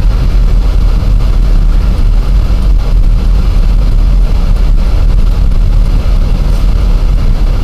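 A car driving at a steady pace, heard from inside the cabin: a constant low rumble of engine and road noise with no change in speed.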